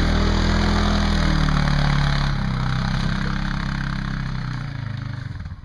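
A motor engine running, its pitch wavering slightly, fading gradually over the last couple of seconds.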